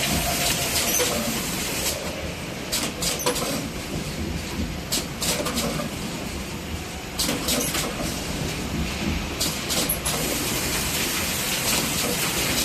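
Two-head track cap-locking machine running, a steady mechanical hiss and rumble with groups of sharp clicks between about two and ten seconds in.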